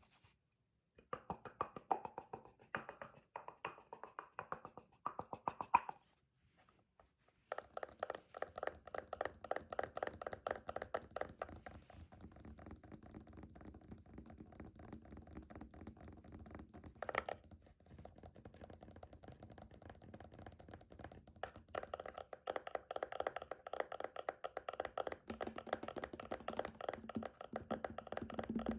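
Fingernails tapping very fast in a dense, rapid patter, pausing briefly about six seconds in.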